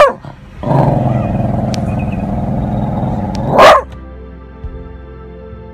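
A dog barks, growls low and rough for about three seconds, then gives one more sharp bark. Soft background music follows.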